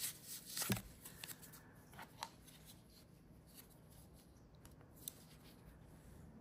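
Faint handling sounds of a smartwatch being taken off a wrist and handled: light rustling with a few small clicks, the sharpest one under a second in.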